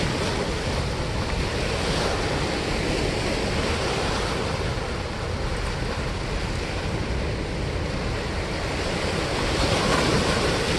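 Steady rush of turbulent water pouring out below a dam spillway.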